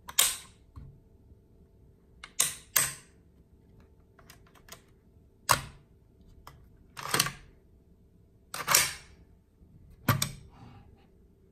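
AKM rifle's action being worked by hand: about seven sharp metallic clacks at irregular spacing, two of them in quick succession.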